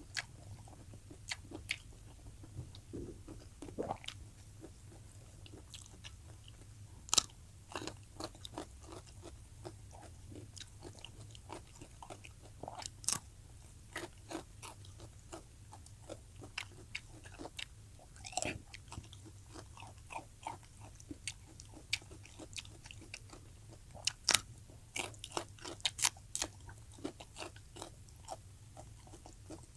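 A person eating close to the microphone, with irregular wet smacks, bites and chewing clicks.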